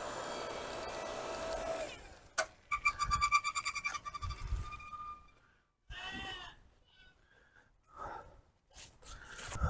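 A steady whirring noise cuts off about two seconds in, then a goat bleats, one long wavering bleat followed a couple of seconds later by a shorter one.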